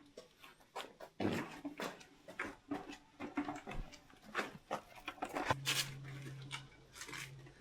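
Irregular knocks and clatter of a wheeled air compressor being rolled and bumped along. A low steady hum comes in about five and a half seconds in and breaks off briefly.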